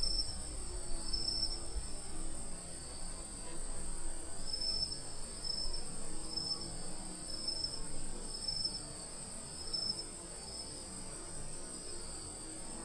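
Insects calling: a steady high-pitched drone with short, repeated chirps about once a second, over low background rumble.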